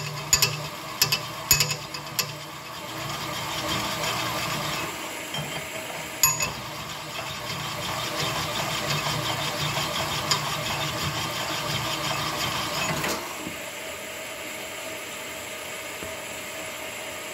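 Small-journal Chevy 283 connecting rod being honed on a rod-honing machine's diamond mandrel to bring its big-end bore to size. Sharp metal clinks come first as the rod is worked onto the mandrel, then a steady grinding hum from the stones cutting. The grinding stops about thirteen seconds in, leaving only the machine's quieter hum.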